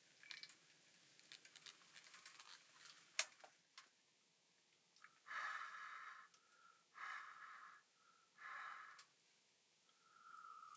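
A person's breath: three short breathy exhalations or sips, about a second and a half apart, after a scatter of small clicks and taps.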